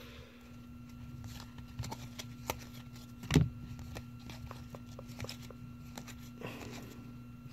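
Topps baseball cards being flipped through by hand, moved one at a time from the front of a stack to the back: light clicks and paper rustles, with one louder knock about three and a half seconds in. A faint steady hum runs underneath.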